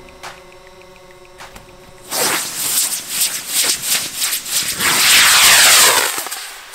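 Giant homemade helicopter-style firework igniting. After about two seconds of quiet, a sudden crackling hiss starts and builds into a loud, steady rushing hiss as the propellant burns and the firework lifts off near the end.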